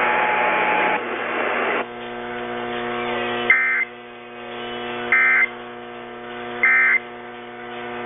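EAS end-of-message data bursts from an AM radio's speaker: three short, identical high-pitched digital squawks about a second and a half apart, marking the end of the alert. A steady electrical hum from the AM reception runs underneath, after a couple of seconds of hiss at the start.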